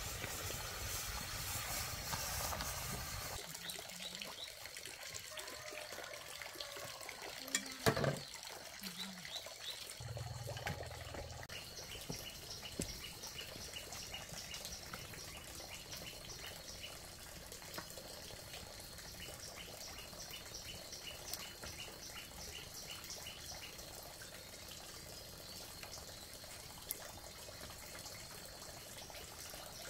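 Greens steaming and a wood fire crackling in a pot for the first few seconds. Then faint outdoor ambience with a steady hiss, one sharp click, and a regular run of short high chirps, about two or three a second.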